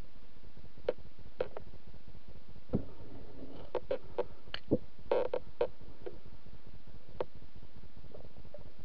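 Underwater sound picked up through a speargun-mounted camera in a river: a steady hiss with scattered sharp clicks and knocks, busiest in the middle, and a couple of duller thumps about three and five seconds in.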